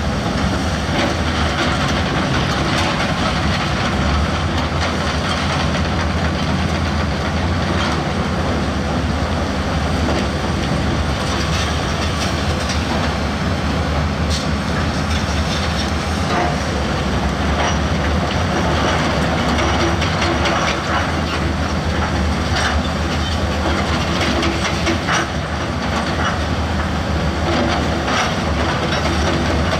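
Heavy diesel earthmoving machine working, its engine running steadily with scattered metallic clanks and knocks.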